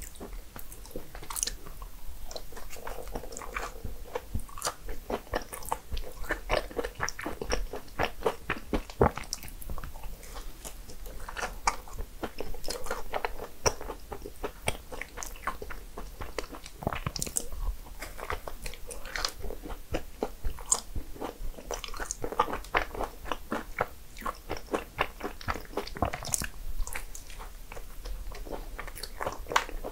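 A close-miked person biting and chewing sweet pastries, with many small crisp clicks coming in clusters.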